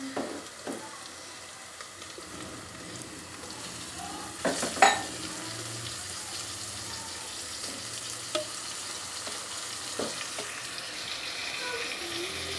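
Raw chicken mince frying and sizzling with onion and ginger-garlic paste in an aluminium pot, stirred with a steel spoon that scrapes and knocks against the pot. The loudest knocks come a little before five seconds in.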